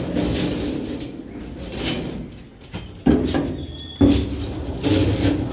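Elevator doors sliding, with sudden knocks about three and four seconds in, over a low rumble.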